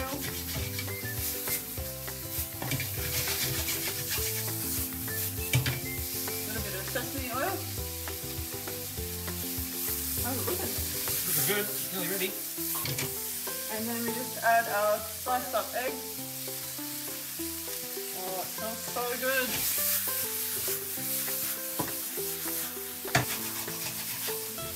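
A vegetable stir-fry of bean shoots and onions with soy and oyster sauce sizzling in a hot frying pan while a spatula stirs and tosses it, with frequent short scraping clicks of the spatula against the pan.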